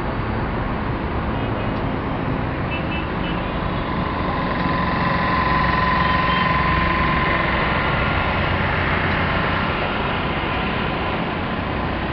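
Highway traffic noise, swelling about four seconds in and easing off again as a vehicle passes, with a faint steady whine while it is loudest.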